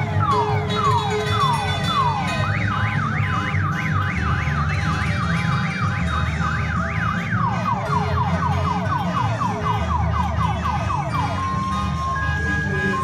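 Ambulance electronic siren cycling through its tones: repeated falling wails, then from about two seconds in a fast up-and-down warble, then faster falling sweeps, and near the end short steady beeps. A low rumble of vehicle engines runs underneath.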